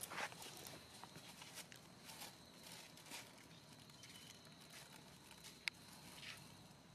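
Faint scattered rustling and scuffing as macaques move on bare dirt and paw at a crumpled plastic bag, with one sharp click a little before the end and a faint steady high tone underneath.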